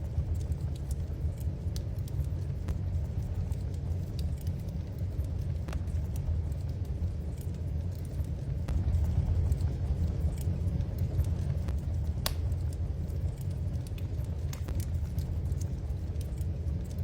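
Wood fire crackling in a fireplace: irregular sharp pops and snaps over a steady low rumble of the flames, with one louder pop about twelve seconds in.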